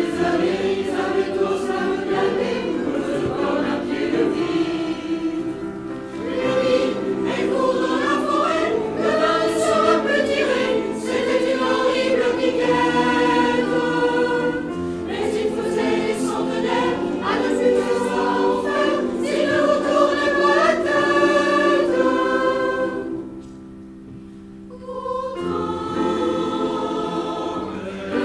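Mixed choir of women's and men's voices singing a song in harmony. About three-quarters of the way through they drop to a soft held chord, then come back in at full voice.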